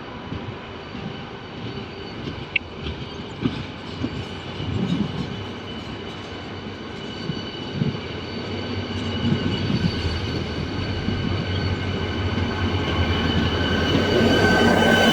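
A train running, its sound building steadily louder, with scattered knocks early on and a steady high whine that grows stronger toward the end.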